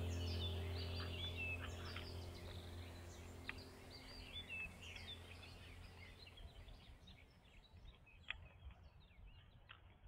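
Birds chirping and twittering in quick short calls over a low steady drone, all fading out gradually; a few sharp clicks in the second half.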